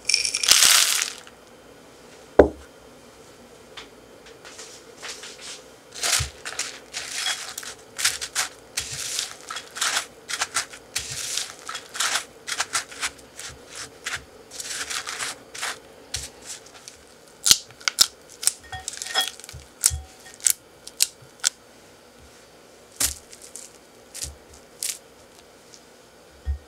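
A silicone spatula stirring and pressing a dry, crumbly mix of milk powder, Greek yogurt and freeze-dried strawberries in a glass bowl: irregular crunching and scraping strokes with sharp clicks against the glass. It opens with a short loud rustling burst.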